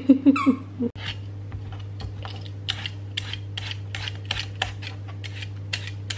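A dog's squeaky rubber toy squeaks a few times in the first second. After a cut, a swivel peeler scrapes the skin off a raw potato in quick, even strokes, about three a second, over a steady low hum.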